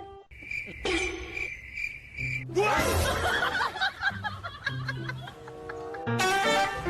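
Laughter over background music, with a steady high tone from about one to two and a half seconds in.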